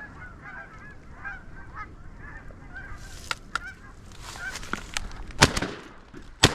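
Canada geese honking and clucking as they drop into decoys, over a low rumble of wind on the microphone. Near the end come two shotgun shots about a second apart.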